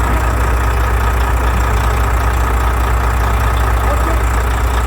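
Volvo FH13's 13-litre inline-six diesel engine idling steadily, with a fine, even pulse. It has freshly replaced rocker arms, fitted to cure a knock and grinding under the valve cover.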